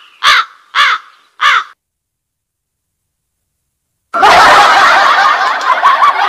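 Crow-caw sound effect played from a sound card's effect pad, the gag sound for a corny joke: a short run of harsh caws ending under two seconds in. After a pause of about two and a half seconds, a recorded laughter effect starts and keeps going.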